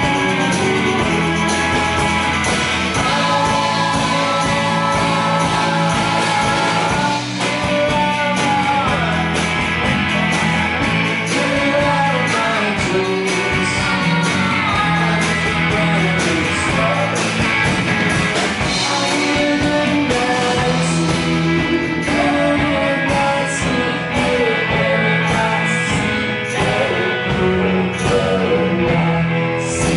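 Live rock-and-country band playing a song: singing over acoustic and electric guitars, drums and keyboard.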